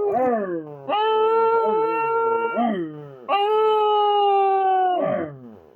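Dog howling: two long, steady howls, each dropping in pitch as it ends, following the falling tail of an earlier howl at the start.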